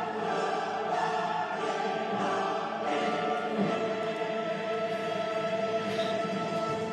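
Choral music: voices holding sustained chords, shifting to new chords about a second and three seconds in.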